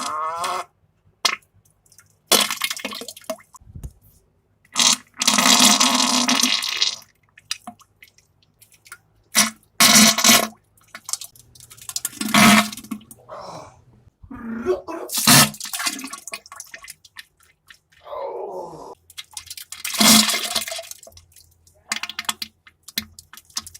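A string of wet, sputtering diarrhea farts: about eight separate bursts a couple of seconds apart, some buzzing, the longest lasting about two seconds, and one falling in pitch near the end.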